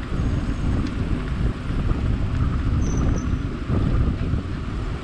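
Wind buffeting the microphone while travelling, a dense low rumble that swells and dips unevenly, with the sound of the moving vehicle underneath.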